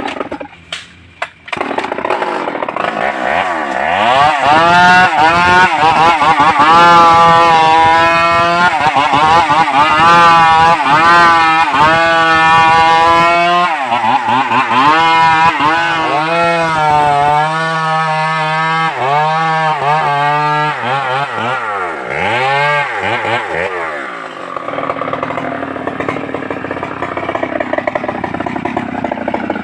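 Stihl MS381 two-stroke chainsaw running hard, its engine pitch rising and falling over and over as it cuts into a tree trunk, after a few sharp knocks in the first second or so. Near the end it settles to a lower, steadier run.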